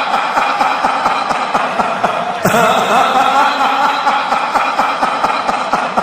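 A laughing sound effect played on a loop, cutting off and starting over about two and a half seconds in.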